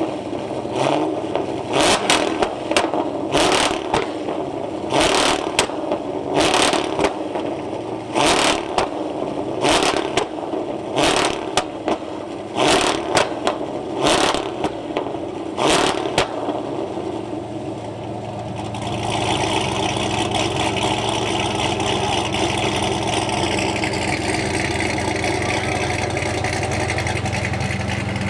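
Cammed, E85-fuelled Cadillac CTS-V's supercharged V8 running with a rough idle, cut through by sharp cracks at irregular spacing, about one a second. About two thirds in, a steadier, smoother engine idle takes over.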